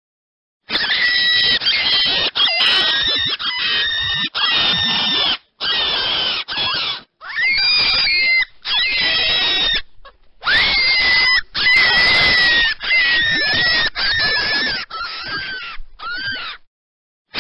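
Rabbit squealing: a run of loud, high-pitched squeals and screams that bend up and down in pitch. They come in chunks that start and stop abruptly, with short silences between some of them.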